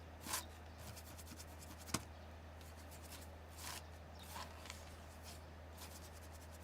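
Faint scattered rustles and light clicks of handling, with one sharper click about two seconds in, over a low steady hum.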